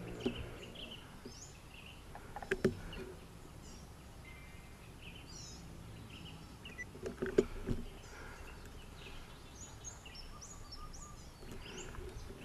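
Small birds chirping and calling at intervals from the surrounding trees, over a steady outdoor hiss. A few sharp knocks and bumps of the rifle being handled and shifted cut in, about two and a half seconds in and again, loudest, a little past seven seconds in.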